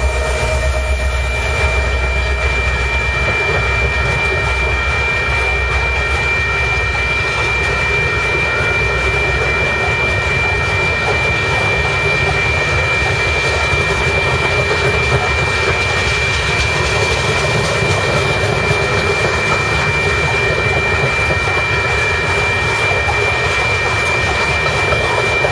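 Loaded rock train's open-top cars rolling past at speed: a steady roar of steel wheels on rail with a continuous high ringing tone. The deep diesel rumble of the departing GP60 locomotives drops away in the first couple of seconds.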